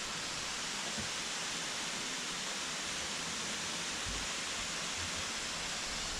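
Waterfall: a steady, even rush of water falling over a rock ledge into a gorge.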